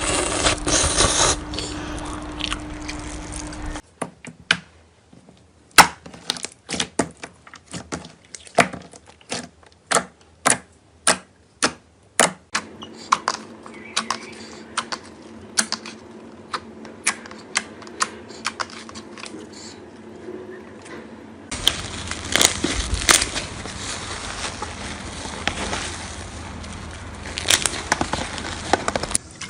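Slime being squished and poked by hand, making sharp sticky clicks and pops, about two a second for a stretch, then softer crackling clicks over a noisier background.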